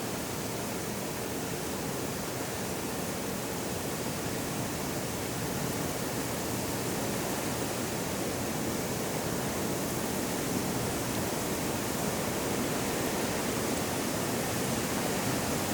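Steady, even rushing noise with no distinct events, growing slightly louder toward the end.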